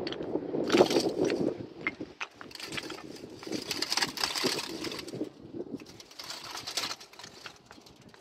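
Dry brush and twigs rustling and crackling as they are handled and burn in a small open wood fire under a kettle, in irregular surges with scattered snaps.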